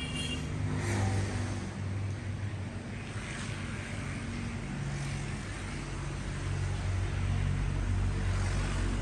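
Motor vehicle engines running with a steady low hum whose pitch shifts now and then, as in road traffic.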